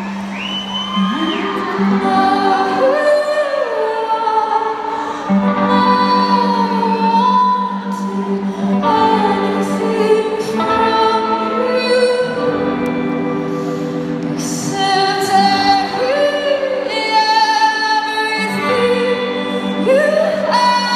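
Live pop-rock band performance: a woman's lead vocal with bending sung lines over a steady low sustained note that drops out and returns several times, heard echoing through a large arena.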